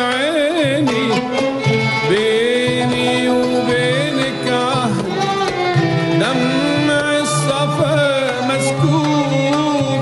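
Background Middle Eastern music from an Arabic song, with an ornamented, gliding melody line.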